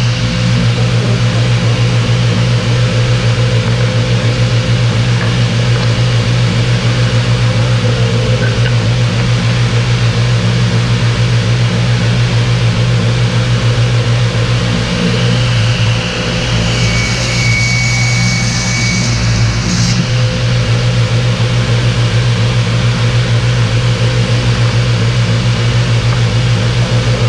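Table saw running with a steady motor hum. Around 16 to 20 seconds in, the sound dips briefly and a higher hiss comes in.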